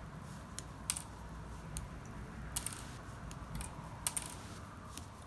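Small plastic Strandbeest kit parts being twisted off their moulded strips. Each one snaps free with a sharp click, several times about a second apart.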